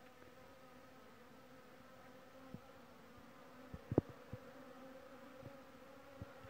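Honeybees buzzing at a crowded hive entrance during their spring cleansing flight: a faint steady hum, with a few short louder buzzes as single bees pass close, the loudest about four seconds in.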